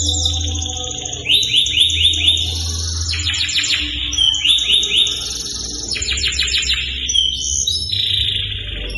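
Domestic canary singing a continuous, varied song: fast trills and rapidly repeated high notes, switching to a new phrase every second or so.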